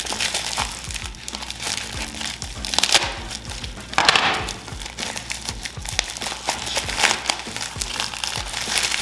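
Black plastic wrapping crinkling and crackling irregularly as it is handled and pulled open by hand, with a louder burst of crinkling about four seconds in.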